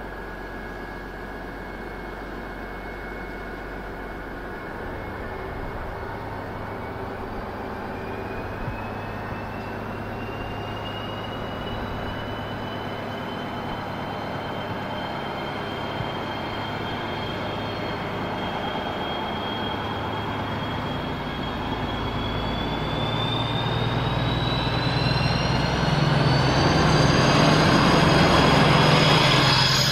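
DB Class 218 diesel-hydraulic locomotive pulling away with a double-deck regional train. Its V12 diesel engine opens up about four seconds in, and a whine rises steadily in pitch as the train gathers speed. It grows loudest near the end as the locomotive passes close by.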